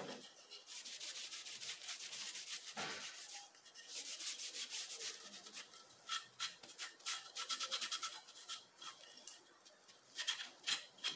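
Cloth rag rubbed back and forth over pine wood in quick, repeated, faint strokes, wiping on wood sealer.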